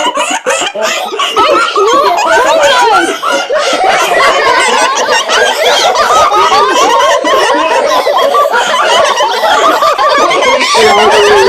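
Children laughing loudly and without a break at a knock-knock joke's punchline.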